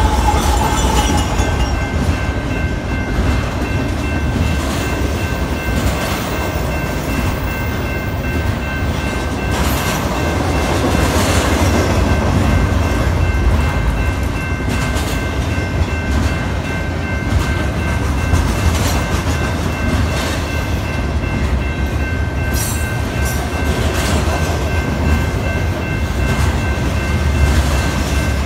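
BNSF freight train of double-stack container cars passing close at speed: a steady, loud rumble and rush of steel wheels on rail with clacking over the joints, a fading engine tone from the passing locomotive in the first second. A steady ringing tone from the grade-crossing warning bell runs underneath.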